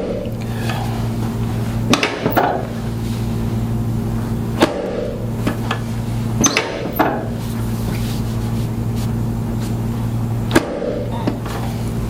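Steady low electrical hum, with sharp clicks and knocks every few seconds; the hum briefly drops out at some of the knocks.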